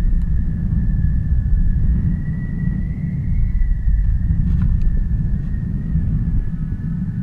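Steady low rumble of air buffeting the microphone of a camera on a high-altitude balloon payload, with a faint thin whistle-like tone above it that wavers slightly in pitch.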